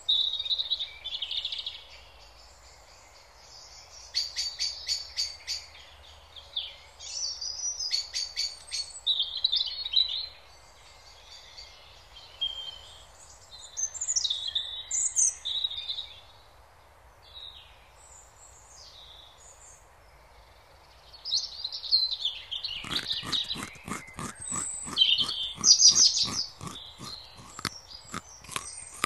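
Small birds chirping and singing. From about three quarters of the way in, a rapid, even crunching of a rabbit nibbling grass close to the microphone joins in.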